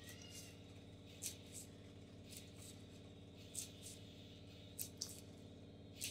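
Near silence: faint room tone with a steady low hum and a few soft, scattered clicks.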